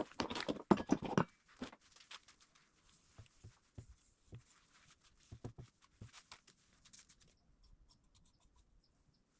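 Small clicks, taps and light scraping from parts being handled by hand on a bench: a quick run of louder knocks in the first second, then scattered quieter clicks that thin out to faint ticks near the end.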